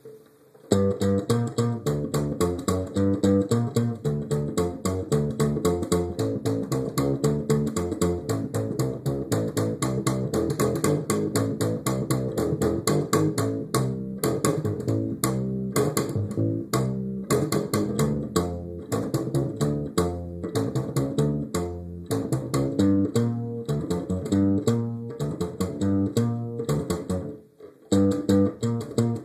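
Music led by plucked guitar and bass guitar, recorded on a phone, starting abruptly about a second in and briefly dropping out near the end.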